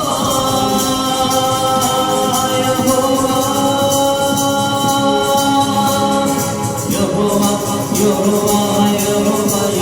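Devotional song with singing over a steady beat, with tambourine.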